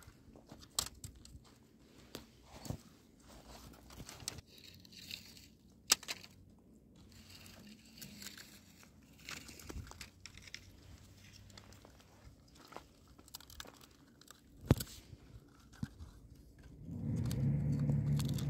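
Two puppies playing with a long dry reed stalk: scattered crackles, rustles and clicks as the reed is bitten, dragged and knocked on stony ground, with two sharp snaps about six and fifteen seconds in. Near the end comes a louder, low sound lasting about a second and a half as the puppies mouth at each other.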